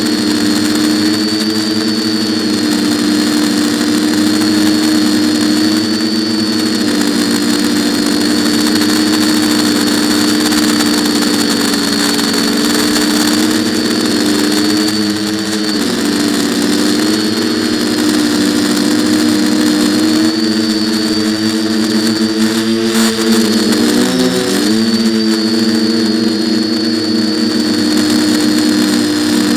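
Quadcopter's four electric motors and propellers running close to the microphone, a steady multi-tone propeller buzz with a high motor whine on top. The pitch dips briefly and comes back up about halfway through and again a few seconds later as the throttle changes.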